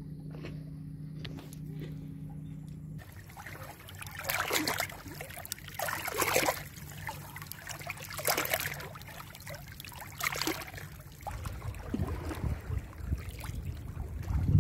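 Small waves lapping and sloshing against barnacle-covered rocks at the water's edge, a wash of water about every two seconds. For the first few seconds a steady low hum sits underneath.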